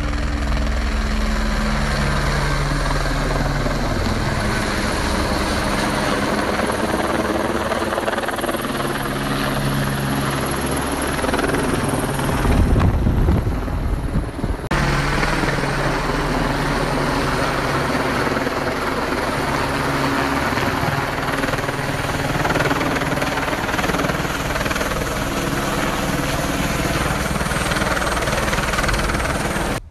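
Supply helicopter running close by, a steady rotor and turbine din. About halfway through it briefly turns louder and deeper.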